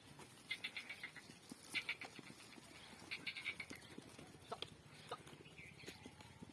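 Faint livestock sounds on a goat farm: several short bursts of rapid clicking.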